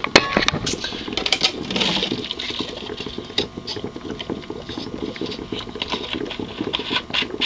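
Hydroxy gas bubbling and fizzing through the water of a homemade HHO electrolysis generator and its bubblers, run off batteries at about 15 amps, a dense, even patter of small pops. A few knocks near the start as the camera is set down on the table.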